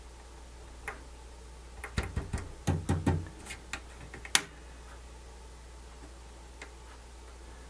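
A run of small plastic clicks and light knocks as the input-selector switch on a Sony MDS-S707 MiniDisc deck's front panel is flicked back and forth and the deck is handled. The sharpest click comes about four seconds in, with a faint steady low hum beneath. The switch has issues, and a bad contact inside it is suspected.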